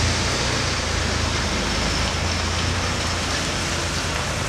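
A heavy multi-axle dump truck's diesel engine idling close by: a steady low rumble under a broad hiss.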